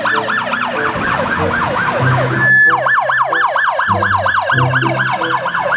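Police car's electronic siren on yelp: a rapid up-and-down sweep repeating about four to five times a second, broken briefly by a short steady tone about halfway through.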